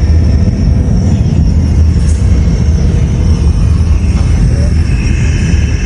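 Car on the move heard through an electronic chassis-ear sensor clamped at the power steering pump: a loud, steady, dense low rumble with a faint high whine above it, part of tracking down a howl that shows up while driving.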